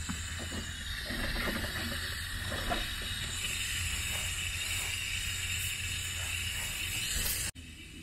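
Water hissing steadily through a leaking Hunter sprinkler valve that will not shut off even with the controller off. The hiss cuts off suddenly near the end.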